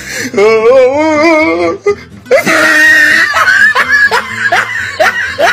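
A person laughing hard: a long, wavering high-pitched cackle, then after a short break a noisier laugh that goes into a run of quick, short laughs, about three a second.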